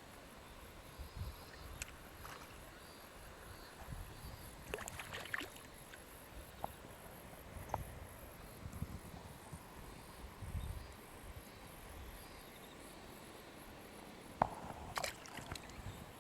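Faint outdoor ambience with insects chirping steadily in a high band, broken by scattered small clicks, rustles and low thuds of handling, loudest near the end.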